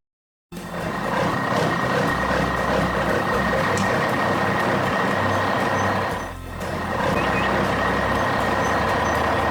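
Cartoon heavy-machinery sound effect: a construction vehicle's engine running loud and steady, with a steady high whine through it. It starts after a brief silence and dips for a moment about six seconds in.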